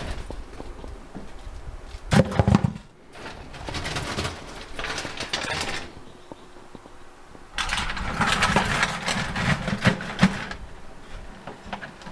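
Scrap parts and wire being handled and sorted into buckets: bursts of clattering and rustling, with a short loud burst about two seconds in and a longer stretch of rattling from about seven and a half to ten and a half seconds.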